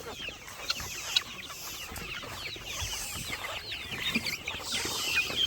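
A flock of chickens clucking and chirping, many short high calls overlapping one another, with a couple of sharp clicks about a second in.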